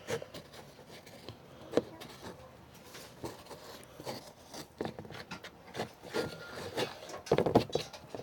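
A utensil scraping and tapping in a container as a thick toothpaste-and-flour paste is stirred, in irregular strokes with a quick run of louder ones near the end.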